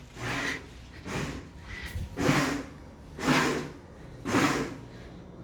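Blender pulsed in short bursts, about one a second, its motor whirring briefly each time while whipping cream.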